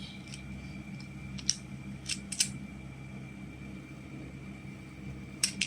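Plastic magnetic building tiles clicking and tapping as they are handled and snapped together, a few sharp clicks scattered over several seconds, over a steady low hum.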